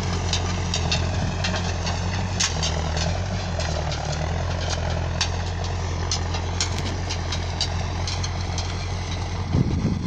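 John Deere 310A backhoe loader's engine running steadily under load, pulling a disk, with scattered sharp rattling clicks throughout. Wind buffets the microphone near the end.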